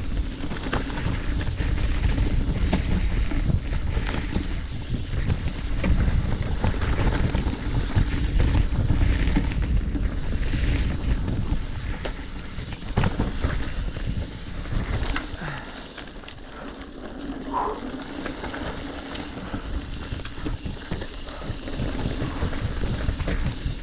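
Mountain bike riding fast down a dirt trail, heard from a bike-mounted GoPro: wind buffeting the microphone, tyres rolling over the ground and the bike rattling with many sharp knocks. It eases off briefly about two-thirds of the way through, then picks up again.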